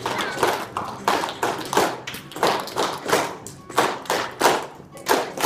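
A flamenco rhythm being struck out: a quick, uneven run of sharp claps and taps, about three a second, with faint music underneath.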